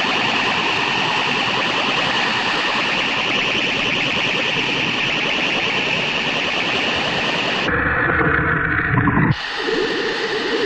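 A harsh, dense hissing and rasping noise effect from a 1960s BBC science-fiction soundtrack. It changes character about eight seconds in, breaks off briefly and picks up again with a lower, heavier rasp.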